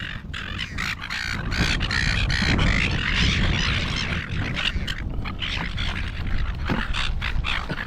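A crowd of silver gulls squawking and calling over one another in a dense, overlapping chorus as they compete for thrown chips.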